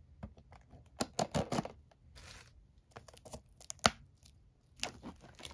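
Plastic shrink wrap on a trading-card box being slit with a knife and torn off: a run of short crinkling rips and clicks, the sharpest just before four seconds in.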